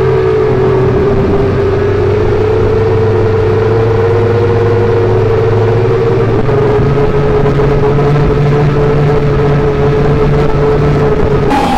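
FPV racing drone's motors and propellers whining at a near-steady pitch as it flies, with the low hum of the cars' engines under it.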